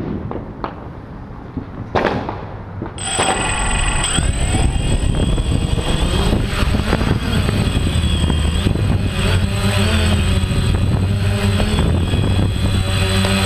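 Quadcopter drone's electric motors and propellers spinning up about three seconds in, after a few knocks, then a steady loud whine as it lifts off and climbs, its pitch shifting with throttle.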